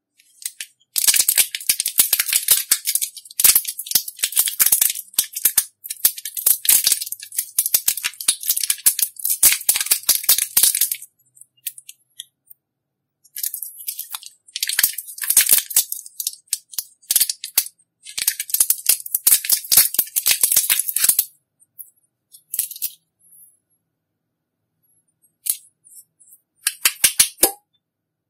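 Slime being squeezed and folded by hand, giving off dense crackling clicks and pops of trapped air. It comes in two long stretches with silent gaps, then a few short bursts near the end.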